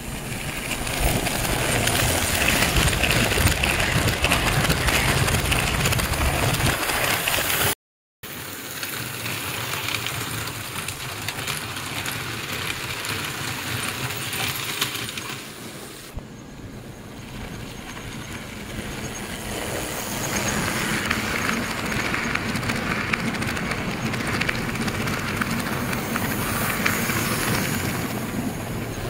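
American Flyer S-gauge toy steam locomotives running on metal sectional track, a steady rumble and clatter of wheels and motors over rail joints and a crossover. The sound swells and fades as the trains pass, and cuts out for a moment about a quarter of the way through.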